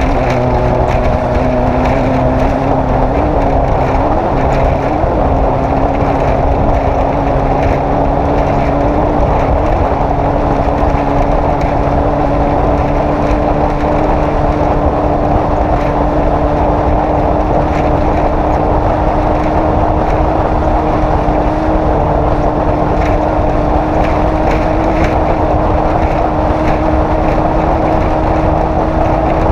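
Off-road race vehicle's engine running hard at a high, fairly steady speed over loud rough rumble and wind noise. The engine note wavers a few times in the first ten seconds, then climbs slowly and steadily.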